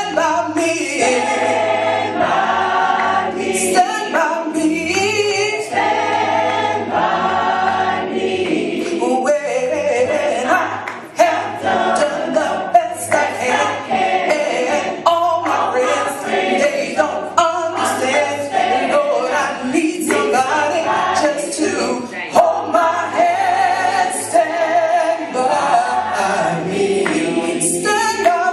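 Gospel choir of mostly women's voices with a man's voice singing a slow hymn in harmony, unaccompanied, with the voices rising and falling together.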